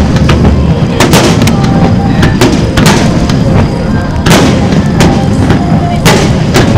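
Aerial firework shells bursting in quick succession: many sharp bangs, some in close pairs, over a continuous low rumble.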